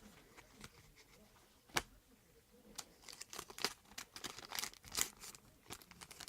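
A trading card pack's wrapper crinkling and tearing open, a run of quick scratchy rustles from about three seconds in, after a single sharp click about two seconds in.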